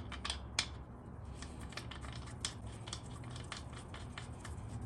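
Light, irregular metallic clicks of a hand tool as the transmission drain plug is threaded back in, over a faint steady low hum.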